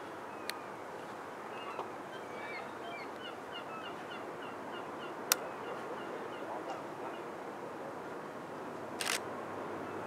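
Steady waterfront background noise with a run of short, high chirping bird calls through the middle. A few sharp clicks cut in, the loudest about five seconds in.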